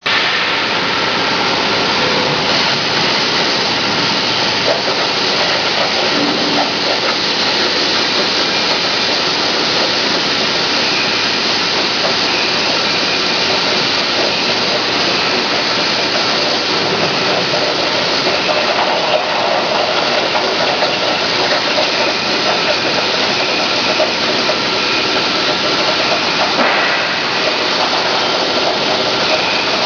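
CNC plasma cutting machine's torch cutting through metal plate: the plasma arc gives a loud, steady hiss.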